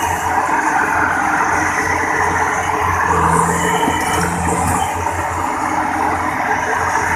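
Diesel engine of a World Star rice combine harvester running hard under heavy load, a loud steady rumble with a low drone and a wash of mechanical noise over it.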